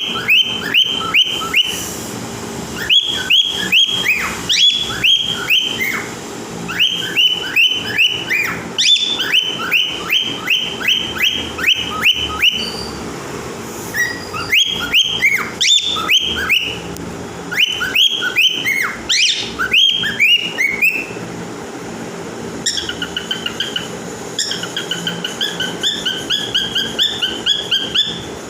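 A pet animal making loud, high-pitched squeaking calls: runs of many short falling notes, several a second, broken by brief pauses.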